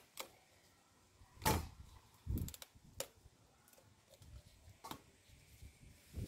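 Cooked king crab shell cracking and snapping as it is pulled apart by hand. There is a sharp crack about a second and a half in, a duller knock, then a few fainter clicks.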